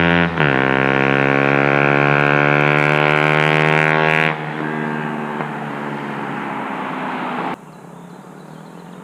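KTM Duke 125's single-cylinder engine revving hard through a Radical Racing full exhaust with the racing dB killer fitted. The pitch dips briefly near the start, then holds high until about four seconds in, when it drops off sharply and the sound grows quieter, falling again shortly before the end.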